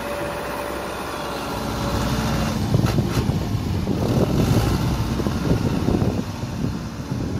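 Fiat 80-66 tractor's diesel engine running steadily, then louder and rougher from about two and a half seconds in as the front-loader tractor moves off, with two short knocks close together shortly after.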